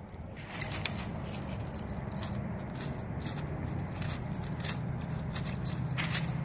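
A Doberman pushing and jumping through dry brush: crisp rustling and crackling of twigs and leaves with light metallic jingling, over a steady low hum that grows louder in the second half.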